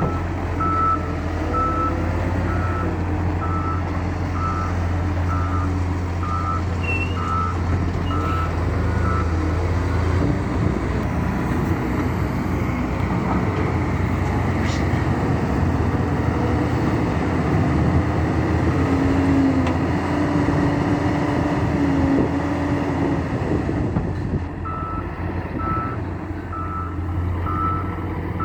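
Heavy diesel construction machine running under load, with its reversing alarm beeping about once a second for the first nine seconds and again near the end.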